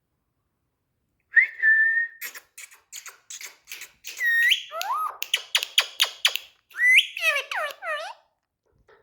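Indian ringneck parrot whistling and chattering: after about a second it gives a held whistle, then a quick run of clicks and swooping whistles that rise and fall in pitch.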